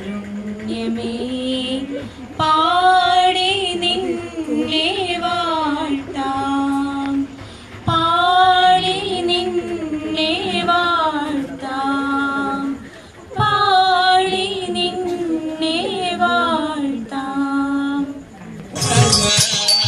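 A high voice singing a melody in phrases with held notes, over a lower sung or held part. A shaker rattle starts just before the end.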